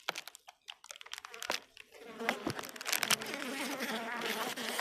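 Honeybees buzzing as they come up out of the opened hive. The buzzing swells in about two seconds in, after a few sharp clicks.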